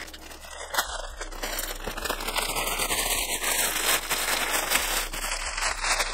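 Plastic packaging crinkling and rustling continuously as a shipped package is opened and unwrapped by hand, getting louder after the first second or so.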